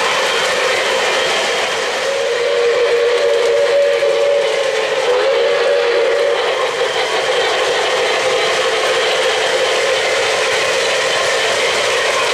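O-gauge model trains running on three-rail track, a steady rumble of wheels and motors. From about two seconds in, a locomotive's whistle sounds for around four to five seconds, wavering slightly in pitch.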